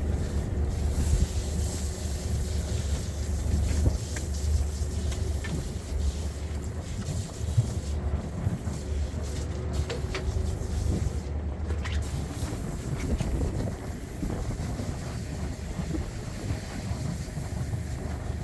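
Fishing boat's engine running with a steady low drone, which eases off about twelve seconds in.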